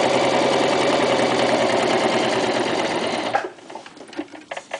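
Toyota FSG325 sewing machine running at a steady speed, stitching through a stack of six layers of vinyl. It stops suddenly about three and a half seconds in, followed by a few light clicks.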